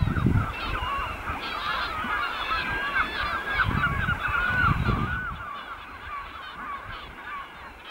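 A flock of birds calling over one another in a dense, continuous chatter of short calls, thinning out after about five seconds. Under it, bursts of low wind rumble on the microphone.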